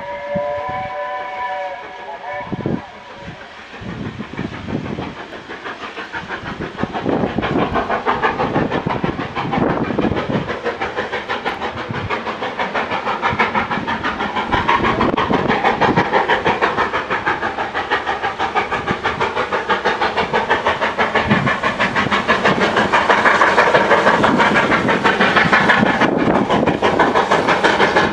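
A steam whistle sounds for about two seconds at the start. Then comes the rapid chuffing exhaust of steam locomotives working hard, a BR Standard Class 4 4-6-0 leading and an S160 2-8-0 banking at the rear, growing steadily louder as the train approaches.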